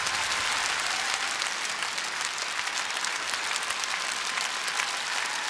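Large arena audience applauding with dense, steady clapping.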